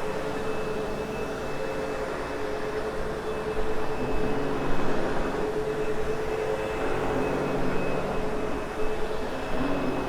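Sebo X8 upright vacuum cleaner running over loop-pile carpet, a steady motor whine with the rush of suction. It gets a little louder about halfway through and again near the end as it is worked back and forth.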